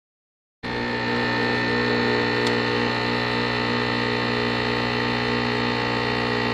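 Espresso machine's pump buzzing steadily while it pours a shot into a glass cup, cutting in suddenly about half a second in.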